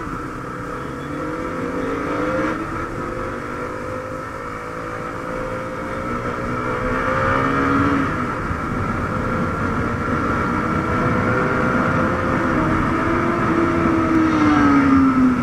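Motorcycle engine running at road speed, its note rising as it accelerates, dropping about halfway through, then climbing again and falling off near the end.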